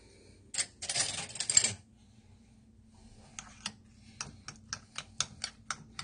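Metal spoon clinking and scraping against a ceramic cup while stirring a thick horseradish sauce: a short scraping rustle about a second in, then a run of sharp clicks about two or three a second from about three seconds in.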